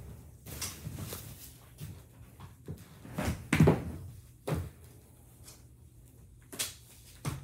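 Irregular thumps and knocks of a child moving about on a floor in a small room, a few a second at times, the loudest about three and a half seconds in.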